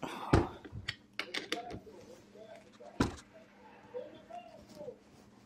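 Sharp metallic clicks and knocks from a gear puller being worked to draw a wheel that is stuck on a power wheelchair's motor shaft. Two louder knocks come about a third of a second in and about three seconds in, with lighter clicks between them.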